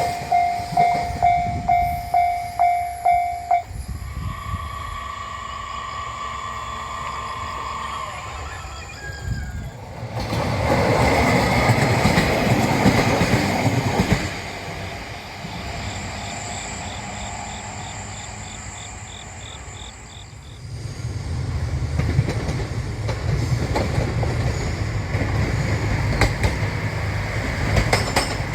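Railroad crossing warning bell dinging about twice a second, stopping a few seconds in. A steady whine follows, then a train passes loudly with rumble and wheel clatter, and lower rumble of a train on the rails continues to the end.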